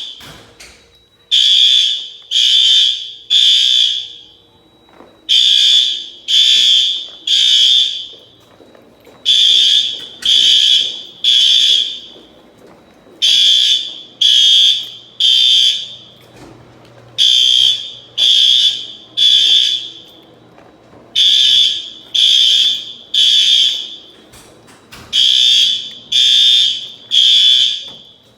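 Gamewell-FCI 7075 fire alarm sounding loudly in the temporal-three evacuation pattern: three short blasts, a pause of about a second and a half, then the same again, seven times over. It is the standard signal to evacuate the building.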